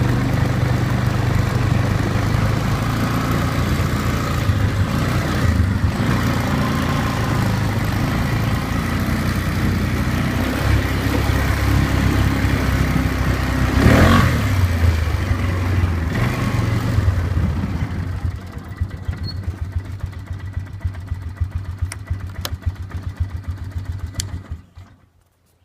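Polaris Sportsman 500 HO ATV's single-cylinder four-stroke engine running as the quad is ridden, its pitch rising and falling with the throttle. One loud knock about halfway through, and the engine runs quieter for the last few seconds before dropping away near the end.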